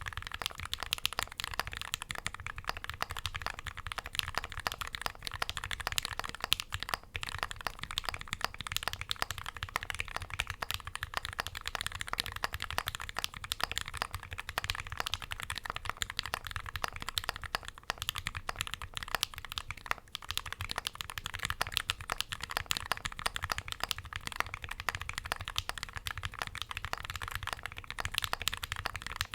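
Continuous fast typing on a top-mounted mechanical keyboard with lubed Gateron Black Ink v2 linear switches in an aluminium full plate and GMK keycaps: a dense, steady stream of key clacks with no pauses.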